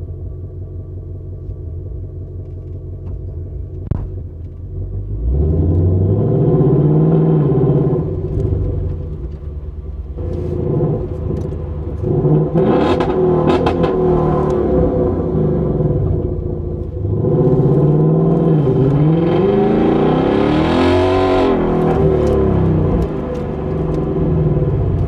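2025 Ford Mustang GT's 5.0-litre V8 idling, then about five seconds in pulling away hard: the revs rise and drop back through several gear changes in three long loud accelerations.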